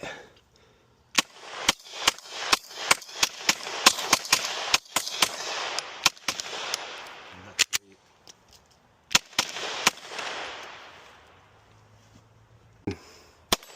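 Rapid gunfire: a string of around twenty-five shots fired quickly over about six seconds, roughly four a second at an uneven pace, each with a trailing echo. A few single shots follow near the end.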